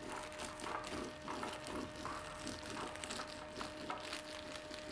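Rolling pin worked back and forth over a plastic sheet pressed on hot peanut-and-jaggery chikki mixture, giving faint, irregular crinkling and crunching.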